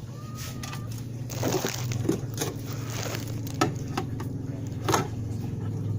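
Knocks and crackling clatter as a container is pushed in among things in a freezer, five or so sharp knocks over a steady low hum.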